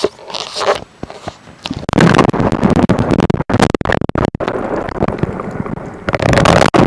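Water gushing hard from the pool's return jet, driven by the new pump, close to the microphone. It starts a little under two seconds in as a loud, rough rushing that keeps breaking up for an instant.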